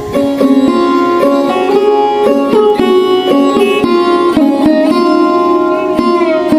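Background instrumental music: a plucked string melody with quickly changing notes and a few sliding notes.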